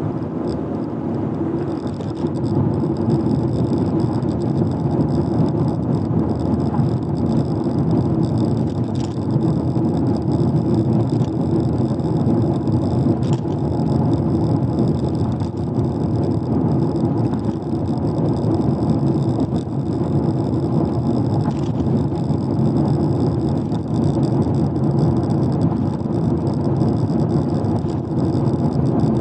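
Steady road and engine noise of a car driving at speed, with a faint high whine.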